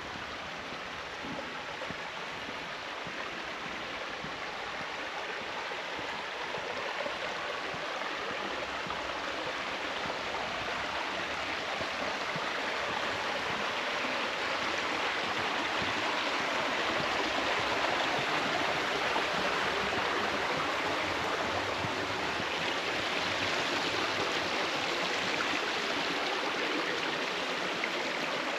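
Flowing stream water making a steady rush, growing gradually louder through the first half or so and then holding.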